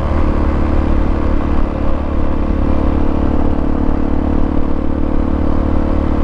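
Hawk 250 dual-sport motorcycle's single-cylinder engine running at a steady speed while riding.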